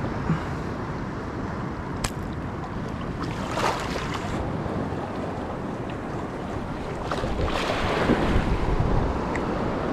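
Steady wind noise on the microphone over shallow lapping water, with a short splash about three and a half seconds in and louder splashing for a couple of seconds near the end as water is churned at the angler's hand.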